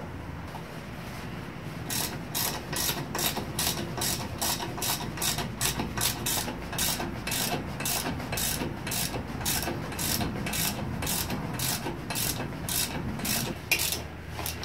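Ratchet wrench clicking in a steady rhythm, about two to three clicks a second, as it runs down the stainless flange bolts holding the pulley to the water pump of a Chevy small-block. The clicking starts about two seconds in.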